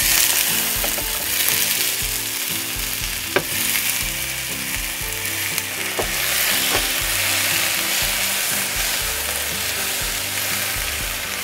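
Chopped tomato, jalapeño, garlic and onion sizzling in hot oil with guajillo chiles in a frying pan as they are stirred, the sizzle loudest just after the vegetables go in. The spatula clicks against the pan a few times.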